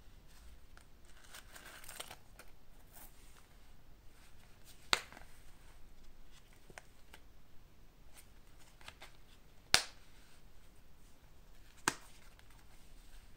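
Hands handling a leather wallet: soft leather rustling and flapping, with three sharp clicks of its press-stud snap fasteners, about five, ten and twelve seconds in.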